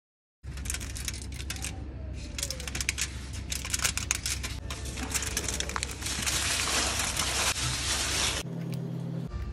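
Aluminium foil and baking paper crinkling and crackling irregularly as hands pull them away from a baked sponge cake; the crinkling stops abruptly near the end.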